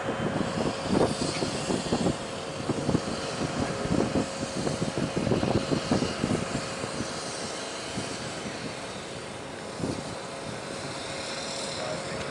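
Twin Pratt & Whitney PW615F turbofans of a Cessna Citation Mustang business jet at takeoff power during the takeoff roll and liftoff: a continuous jet rumble with a thin steady whine and irregular low buffeting.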